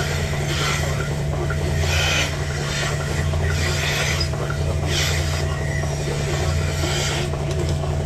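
Milking machine running: a steady low hum from the vacuum system, with a hiss about once a second from the pulsating milking units on the cows.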